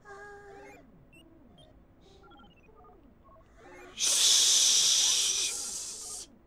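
Voices shushing together, one long loud 'shhh' hiss that starts about four seconds in and lasts about two seconds.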